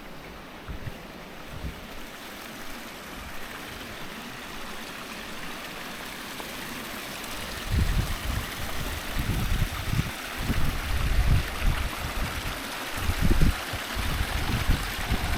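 Waterfall and stream water flowing, an even rushing hiss that grows gradually louder. From about halfway, irregular low rumbling buffets of wind noise on the microphone come in over it.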